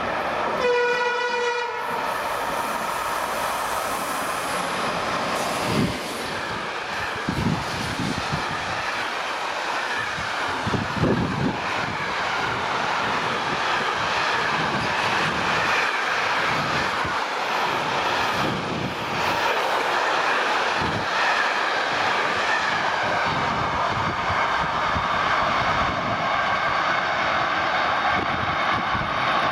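EL14 electric locomotive sounding one horn blast of about a second and a half, about a second in, then a fast container freight train passing close. The wagons rolling by make continuous loud rail noise, with wheel clatter over rail joints, strongest in the first half.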